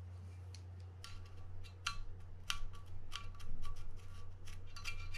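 A small screwdriver clicking and scraping against metal parts inside a Shimano Tiagra 50W reel's frame: irregular sharp metallic clinks with a brief ring, starting about a second in and coming thicker toward the end, over a steady low hum.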